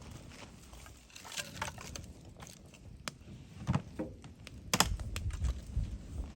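Irregular clicks and knocks, a few louder ones in the second half.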